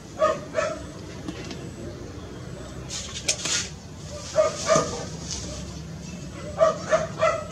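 A dog barking in the background, a pair of barks near the start, another pair a little past the middle and three more near the end, with a brief noise about three seconds in.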